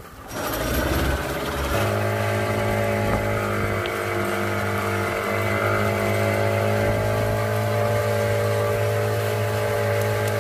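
Engine of the boat towing a knee board, picking up speed over the first couple of seconds and then running steadily at speed.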